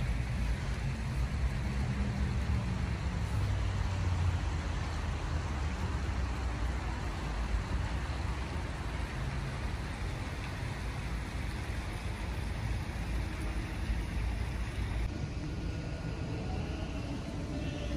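Steady outdoor ambience: a low rumble under an even hiss, with no distinct events. The sound changes abruptly about fifteen seconds in, as the rumble drops.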